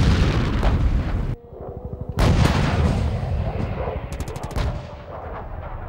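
Battlefield sound of gunfire and shell blasts. A loud blast is cut off abruptly just over a second in. Another blast a little after two seconds dies away slowly, and a quick rattle of sharp cracks comes about four seconds in.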